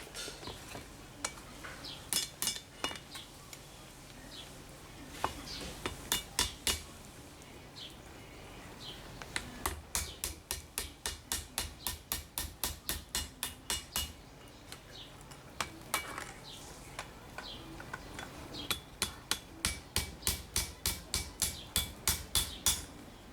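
Hand hammer striking steel on an anvil while forging a small damascus steel axe head, in runs of quick ringing blows about three to four a second, with short pauses between the runs.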